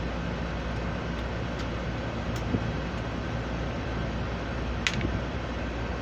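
Steady hum of air-conditioning machinery running, with a few light clicks and one sharper click about five seconds in.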